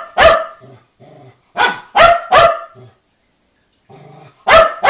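A dog barking in sharp, loud barks at its owner in a tantrum: one bark, then three in quick succession about a second and a half in, then two more near the end, with faint low grumbling between the groups.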